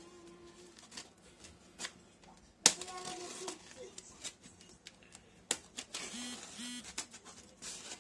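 Utility knife cutting and scraping through packing tape and plastic wrap around a styrofoam box lid: irregular sharp clicks and scratches, the loudest click a little under three seconds in.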